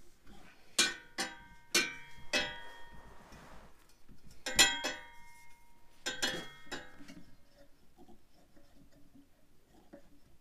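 Polished stainless steel rear exhaust section clinking and ringing against the exhaust pipe and hangers as it is worked into place by hand. There are several sharp metallic knocks, each with a short ring; the loudest pair comes about halfway through, then only faint small taps for the last few seconds.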